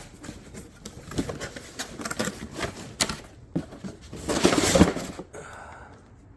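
Cardboard box and packaging of a caulking gun being opened and handled: scattered clicks, knocks and rustling, with a louder burst of rustling about four seconds in.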